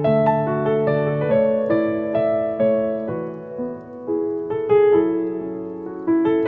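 Background music: solo piano playing gentle sustained chords and melody notes, each struck and left to ring and fade.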